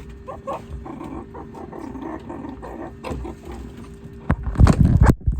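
Pet meerkats calling with short, broken sounds, then several loud bursts a little over four seconds in.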